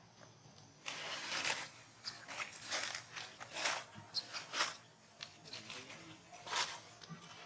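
Irregular rustling and crunching noises, a quick series of short scrapes starting about a second in.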